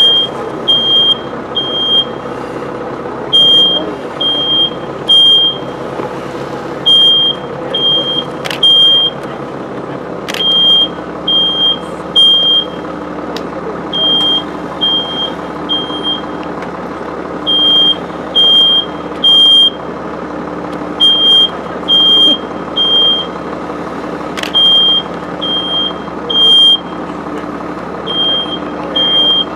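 Smoke alarm sounding the temporal-three evacuation signal, three high beeps then a pause, over and over, set off by smoke from a small trash-can fire in the room. A steady background noise runs beneath, with a few sharp clicks.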